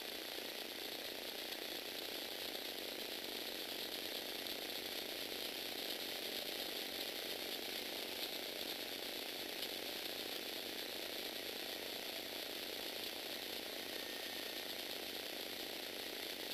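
Lego Technic V-twin engine model running, its plastic pistons, crankshaft and gears clattering steadily.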